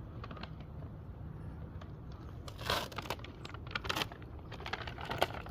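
A steady low rumble, with a run of crackles, crunches and clicks starting about halfway through.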